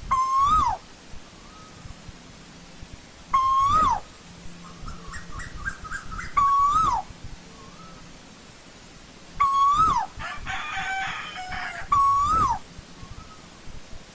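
Asian koel calling: a loud single note that rises and then drops sharply, repeated five times about every three seconds. Between calls come softer, quick runs of short notes, twice.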